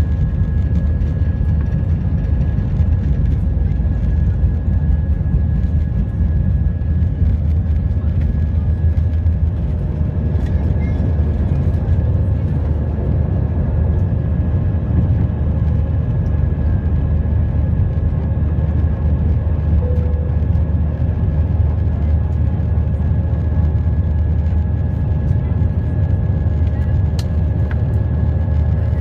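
Steady cabin noise inside a jet airliner: a constant low rumble from the engines and airflow, with a few faint steady whining tones above it.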